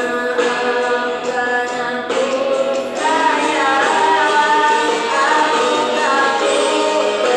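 A young girl singing solo into a handheld microphone, her voice amplified, with long held notes from about three seconds in.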